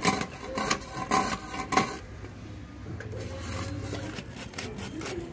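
Fish scales being scraped off a large fish with a serrated metal scaler: quick rasping strokes, about three a second, turning to softer scraping about two seconds in.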